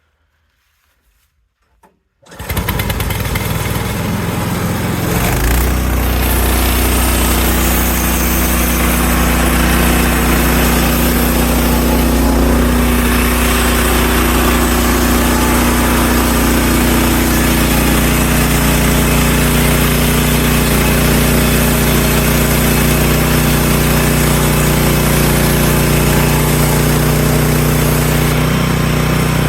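Gas engine of a TMG portable band sawmill running at speed as the mill saws a slab off a log. It comes in suddenly about two seconds in after near silence, settles by about five seconds, then holds steady.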